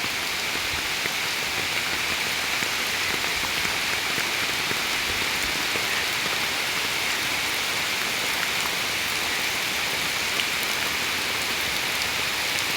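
Heavy rain falling steadily: a dense, even hiss of rain on surfaces with scattered sharper drop hits.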